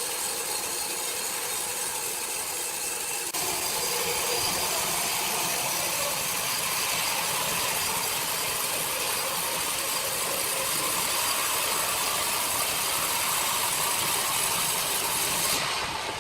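Sawmill machinery running with a steady mechanical noise, stepping up suddenly about three seconds in.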